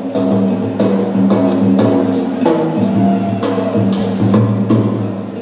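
Live rock band playing: a drum kit beats a steady pulse of just under two hits a second over sustained low bass notes.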